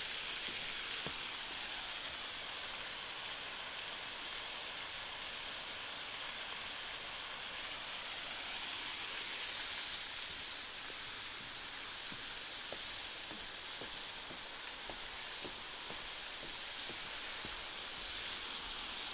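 Steady rushing hiss of a nearby waterfall, with a few faint footsteps on wooden steps.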